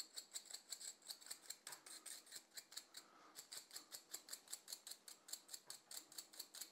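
A small brush flicking quickly over the aluminium grinding chamber of a Bentwood Vertical 63 espresso grinder, sweeping out retained coffee grounds. The strokes are faint and even, about eight a second, with a short pause about three seconds in.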